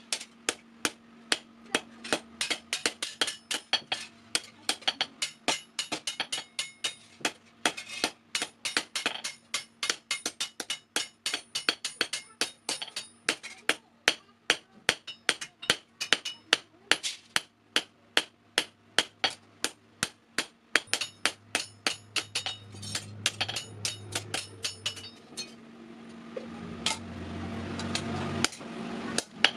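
Hand hammer striking metal on an anvil in quick, even blows, about three a second, each with a bright metallic ring, as a sickle blade is forged. The blows stop near the end and a rising rushing noise takes over.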